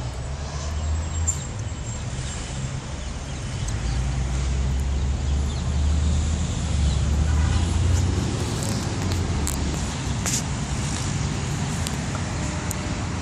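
Distant road traffic: a steady low rumble that swells around the middle, with a few faint clicks later on.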